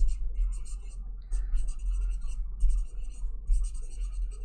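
Black felt-tip marker writing on paper: a run of short scratchy strokes with brief pauses between letters and words, over a steady low hum.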